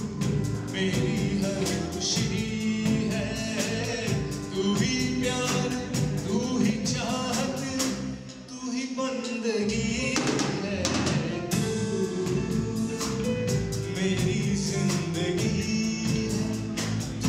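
A song with singing over a steady drum beat. The music thins out briefly about halfway through, then comes back in full.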